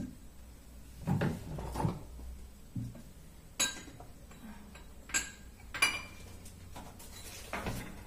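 Jars and bottles knocking and clinking against a kitchen cupboard shelf as they are put away: a few soft knocks, then three sharp clinks with a brief ring, roughly between three and a half and six seconds in.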